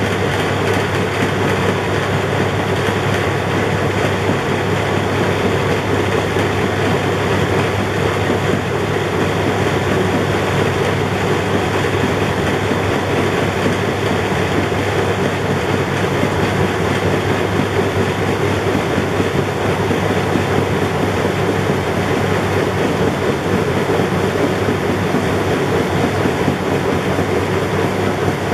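Philips SlimStar washing machine running with its back panel off: the motor drives the drum through the belt and pulley, giving a steady, loud mechanical running noise with a low hum and a light rattle.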